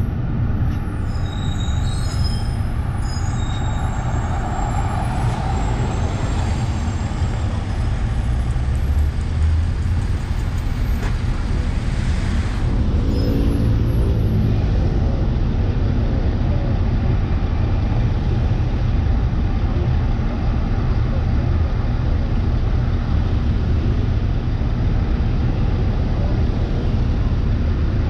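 Scania city bus heard from outside its flank: a steady low engine and road rumble, with brief high squeaks in the first few seconds as it slows, then the engine idling while the bus stands in traffic.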